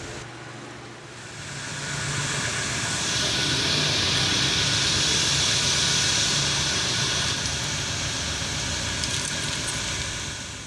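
Motor vehicle passing: a rushing of engine and road noise with a low hum swells over about two seconds, holds, and fades near the end.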